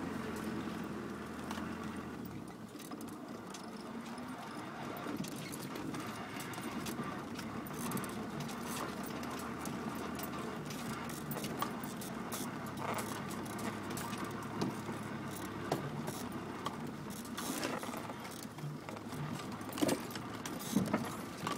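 Land Rover Discovery Mk1 driving over rough off-road ground, heard from inside the cabin. The engine runs under a constant clatter of rattles and knocks, which grow heavier and louder near the end.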